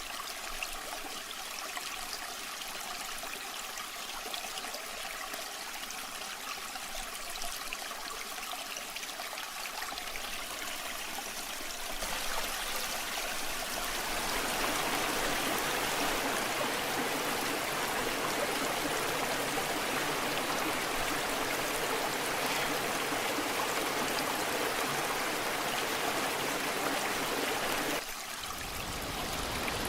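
Rushing water of a waterfall and stream, a steady hiss that grows louder about twelve seconds in and again a couple of seconds later, then changes abruptly near the end.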